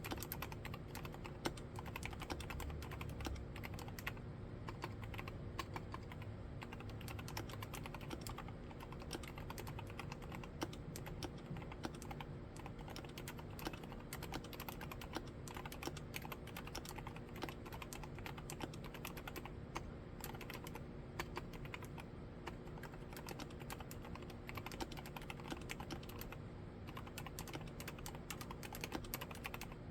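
Continuous rapid typing on an Akko MOD007 75% mechanical keyboard fitted with mStone silent milky switches, keystrokes following one another without pause.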